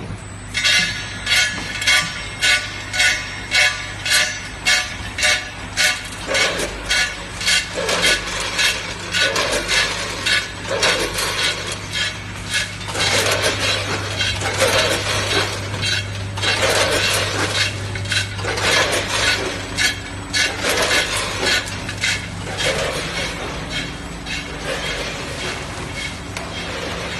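Quadra-seal bag packing machine for nuts running, with a steady hum under repeated metallic clinking: about two clinks a second at first, then longer, irregular bursts of clatter.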